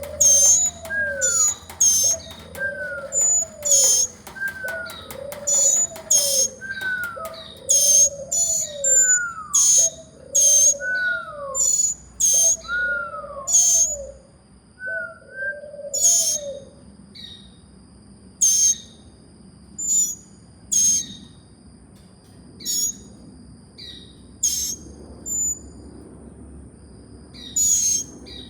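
Nestling birds chirping with sharp, high peeps, about one or two a second. Through the first half a lower call repeats about once a second, then stops about halfway.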